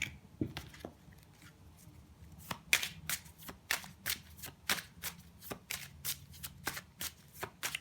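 Tarot deck being shuffled by hand: a few soft card clicks, then from about two and a half seconds in a quick run of card snaps, about three or four a second.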